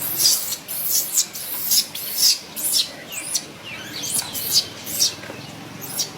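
Baby monkey squealing: short, high-pitched cries repeated about twice a second, with one sliding cry about four seconds in.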